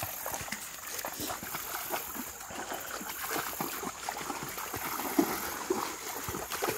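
Two large dogs wading through shallow creek water, making irregular sloshing and splashing, with a louder splash about five seconds in.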